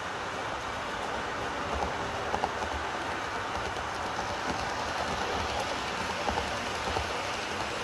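HO-scale model train running along the track and passing close by, with light clicking from its wheels on the rails and a few sharper clicks about two seconds in and again near the end.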